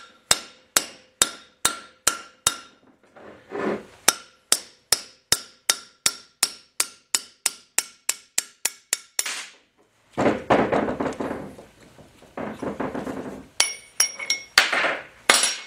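Hammer blows on a valve guide driver, tapping an intake valve guide out of a Willys F-head cast-iron cylinder head. About twenty sharp metal strikes come at a steady pace that quickens, then stop about nine seconds in as the guide comes free. Scraping and rattling follow, then a few ringing metal clinks near the end.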